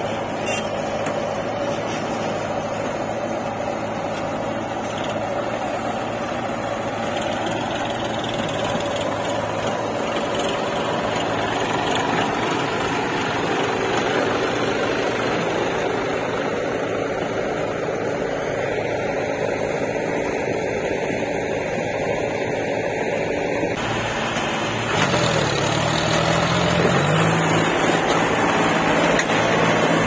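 John Deere tractor's three-cylinder diesel engine running steadily, then revving up near the end and holding at a higher, louder speed.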